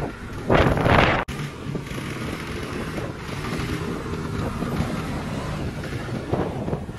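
Quad bike engine running on sand dunes, with wind buffeting the microphone. A loud gust comes about half a second in, the sound cuts off sharply just after a second, and then a steadier mix of engine and wind follows.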